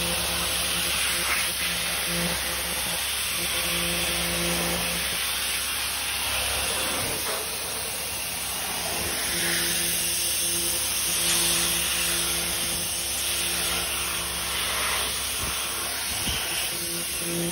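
Pressure washer spraying a high-pressure water jet onto the rusted sheet-metal front end of a car, a steady hiss. A low hum runs under it, dropping out for a few seconds in the middle and coming back.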